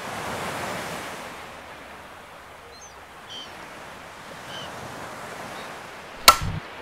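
Gentle surf washing on a shallow sandy shore with some wind, swelling briefly at the start and then settling low; a few faint short calls in the middle and one sharp click near the end.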